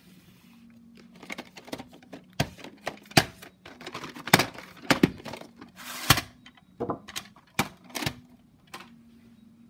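A VHS tape in its case being handled and turned over in the hand: a run of irregular plastic clicks and knocks, a few of them sharp and loud, with short rustles in between.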